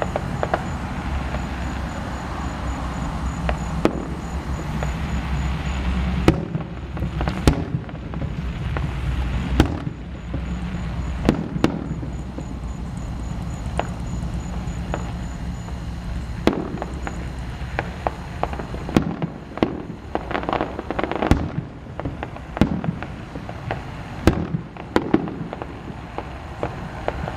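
Aerial fireworks display: many sharp booms and cracks of bursting shells over a constant low rumble, the bangs coming thicker in the second half.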